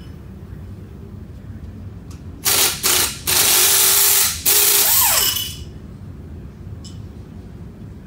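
Shop air tool running in short bursts, starting about two and a half seconds in: two quick blips, then two runs of about a second each, its hiss and whine falling in pitch as the motor spins down.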